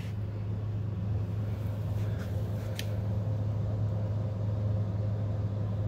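Steady low background hum filling the room, with a single faint click a little under three seconds in.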